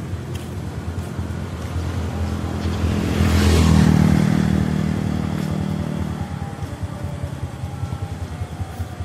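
A motor vehicle passing close by on the road: its engine noise swells to a peak about three and a half seconds in, then fades away by about six seconds, over a steady low rumble.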